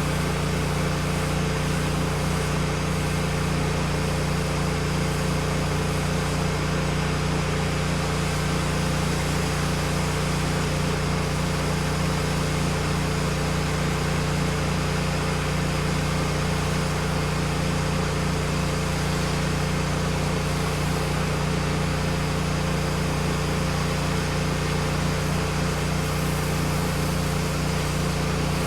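Honda iGX800 V-twin gas engine of a pressure washer running steadily under load, a constant hum with an even hiss above it.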